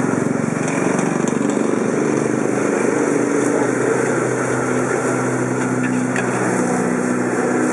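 A steady, loud machine-like drone with a low hum, under the scrape and clink of a spatula stirring fried rice in a wok.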